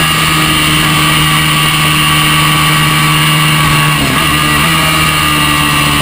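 Honda NC30 race bike's V4 engine running at high revs, heard on board at track speed, with a short break in its note about four seconds in.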